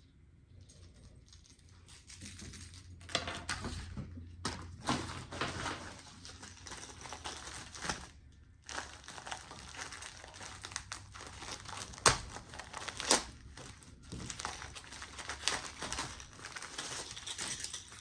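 Plastic packaging crinkling and rustling as it is handled and opened, with a couple of sharper clicks about a second apart about two-thirds of the way through.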